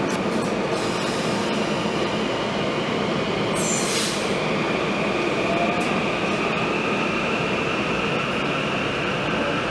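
SEPTA Rotem Silverliner V electric multiple-unit train pulling out along an underground station platform: steady running and wheel noise of the cars, with a faint high whine and a short hiss of air about four seconds in.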